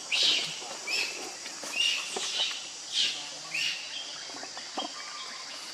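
Young macaque giving a series of short, high-pitched squeals and cries, about one or two a second, the loudest near the start.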